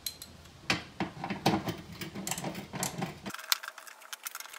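Socket wrench working the bolt of a car battery hold-down bracket: a run of irregular metallic clicks and taps. The low background drops away abruptly about three seconds in while the clicking goes on.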